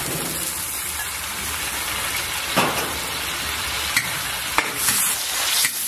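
Pork belly slices sizzling as they are stir-fried in pan fat with soy sauce, with a steady frying hiss. A spatula scrapes and clicks against the pan several times from the middle on as the meat is stirred to take up the soy sauce.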